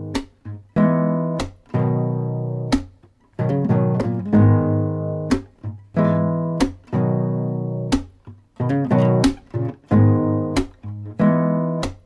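Background music on acoustic guitar: strummed chords struck about once a second, each ringing out and fading, with short sharp strokes in between.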